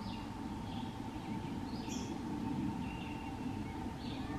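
Woodland ambience: short, scattered bird chirps about once a second over a steady low rumble and a faint steady hum.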